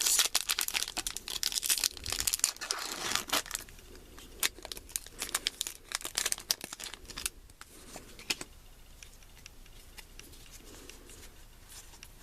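A foil Pokémon trading-card booster pack wrapper being torn open and crinkled: dense crackling for the first few seconds, then scattered sharp crinkles that thin out and grow quieter toward the end.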